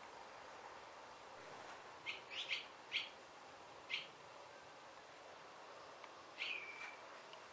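Barn swallow calling: a quick run of four short, sharp chirps, a single chirp a second later, then near the end a note that drops in pitch and holds briefly.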